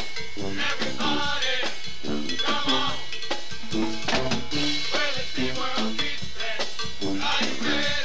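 Upbeat music with a steady drum beat and percussion, in a Latin style.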